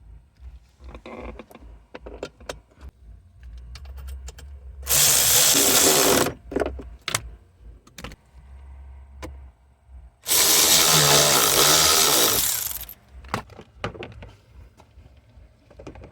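A power tool runs in two bursts, one about five seconds in lasting just over a second and a longer one about ten seconds in lasting some two and a half seconds. Small clicks and knocks of parts being handled come in between.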